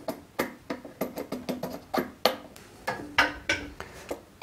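Laser collimator being pushed and seated into a telescope focuser: an irregular run of small metal clicks and knocks, a few per second, some with a short low ring.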